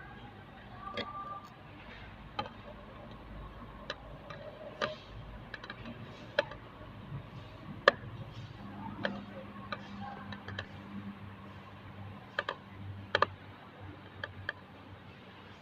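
Scattered light clicks and taps at an irregular pace, a dozen or so, over a faint steady low hum: small hard parts and hand tools being handled at the workbench.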